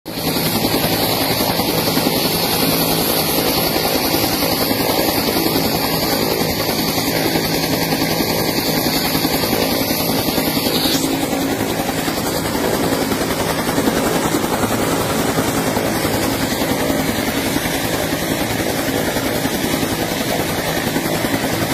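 Helicopter running loud and steady as it takes off, its rotor and engine noise filling the air. A high whine in the sound cuts off abruptly about halfway through.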